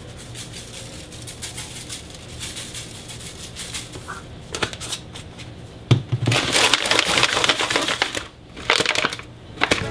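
Adobo seasoning shaken from a plastic shaker bottle onto raw chicken, a light rapid rattle, then from about six seconds in a disposable aluminium foil pan crinkling loudly as it is gripped and moved.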